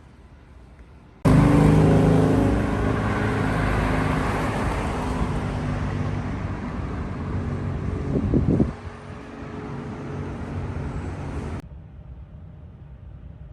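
Motor vehicle running close by in city traffic: the engine and road noise start suddenly, fade gradually, and stop abruptly near the end.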